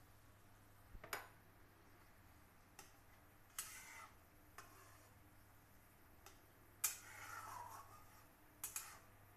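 Metal spatula clinking and scraping against a metal kadhai while stirring vermicelli cooking in water: a handful of separate sharp clinks and short scrapes, the loudest and longest scrape about seven seconds in.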